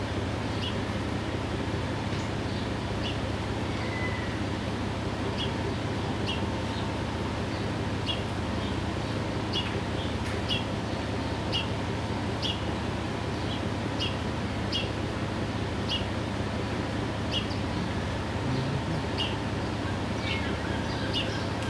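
Outdoor harbor ambience: a bird repeating short, high chirps every second or so over a steady low hum.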